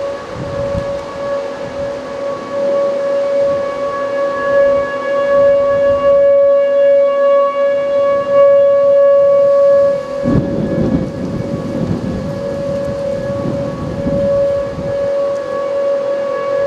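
Whelen electronic outdoor warning sirens sounding a steady tone for a tornado warning: the main siren near 560 Hz, with a fainter second siren just below it, near 465 Hz. A low rumble comes in about ten seconds in and lasts several seconds.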